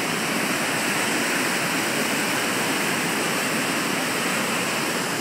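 Waterfall with water falling and splashing as a steady, even rush.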